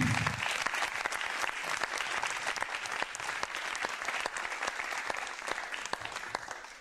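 A roomful of people applauding, many hands clapping at once, dying away near the end.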